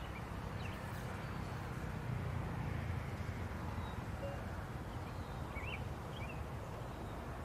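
Faint outdoor ambience: a steady low rumble with a few short, high bird chirps scattered through it.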